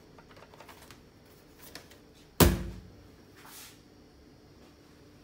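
A plastic Bosch hand mixer handled with light clicks, then set down on a laminate floor with one loud thump about two and a half seconds in, followed by a softer brush.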